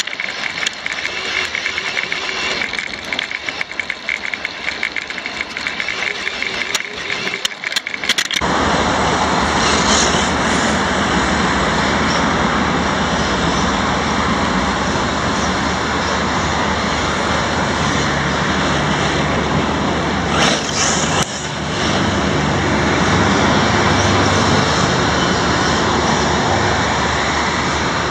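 RC desert buggy running over gravelly dirt, its body and chassis rattling with sharp scrapes and clicks. About eight seconds in this cuts to a steady loud rushing noise with a low hum underneath that holds to the end.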